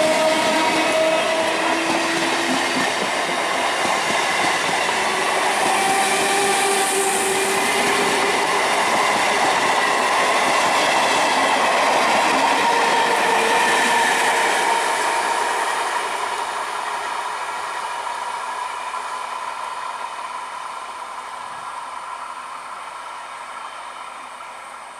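Siemens-built EMU electric local train running past close by and moving away, with dense rolling noise and an electric traction whine of several tones that shift slowly in pitch. It fades steadily over the last ten seconds as the train recedes.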